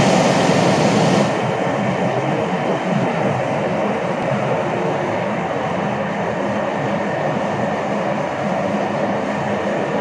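Steady, loud drone of running machinery on an oil drilling rig, with a few constant hum tones under it. A brighter hiss drops away about a second in.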